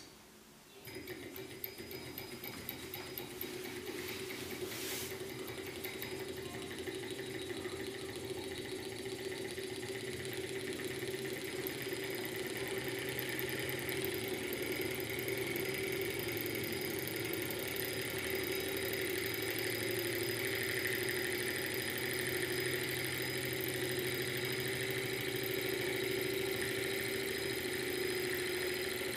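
A small model Stirling hot-air engine, heated by a spirit-lamp flame, starts up about a second in after its flywheel is turned by hand. It then runs steadily, getting louder over the first dozen seconds as it comes up to speed, with one brief click near 5 seconds.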